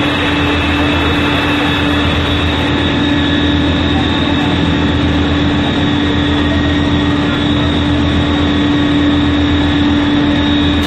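Firefighting equipment at a still-burning fire, running with a loud, steady drone and a constant hum.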